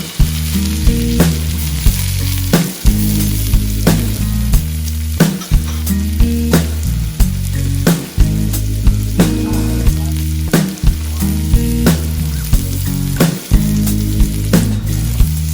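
Food sizzling as it is fried and stirred in a pan, under background music with a steady beat and a moving bass line.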